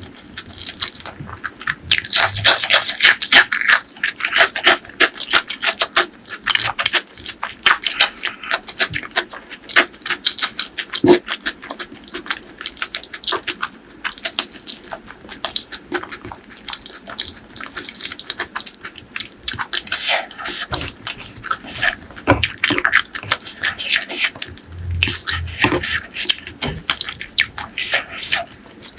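Close-miked eating of spicy pork leg curry with rice: wet chewing and smacking, a dense run of small mouth clicks throughout.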